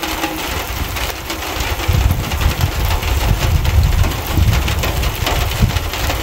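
Heavy rain falling on a car's bonnet: a dense hiss of drops with many sharp individual hits, over an uneven low rumble that swells and fades.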